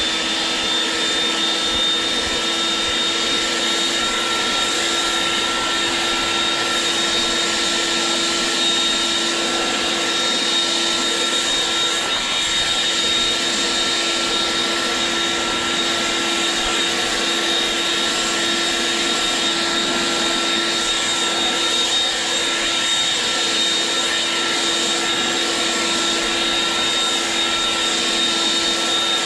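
Leaf blower running steadily at one constant speed, a rush of air with a high, unchanging whine, blowing grass clippings off the sidewalk and curb.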